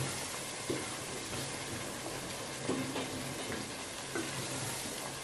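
Soup cooking in pots on a gas stove: a steady sizzling hiss, with a few faint short knocks.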